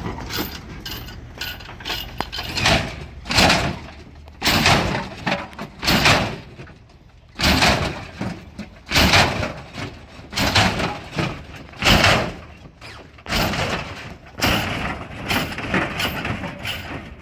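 Hydraulic lowrider Chevrolet Monte Carlo doing a car hop: the front end is launched and comes down again and again, each hop a loud bang and clatter from the suspension, about once every second or so.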